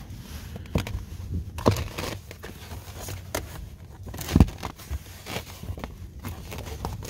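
Clicks and rustling as the stock floor mat's two retention clips are unpopped and the mat is pulled out of the footwell, with a louder knock about four and a half seconds in.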